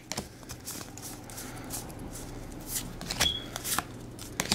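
Magic: The Gathering trading cards from a freshly opened booster pack being flicked through one by one in the hand: a run of short card slides and flicks, louder around three seconds in.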